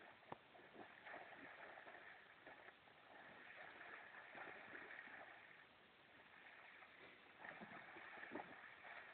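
Near silence: faint outdoor ambience with a soft, even hiss and a few faint clicks.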